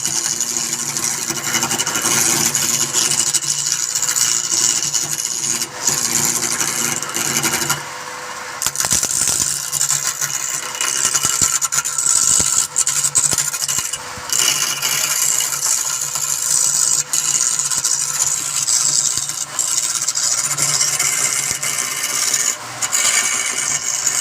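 A wood lathe running, with a turning tool cutting and scraping the spinning wood in a steady rasping hiss over the motor's hum. The cutting breaks off briefly about a third of the way through, then resumes.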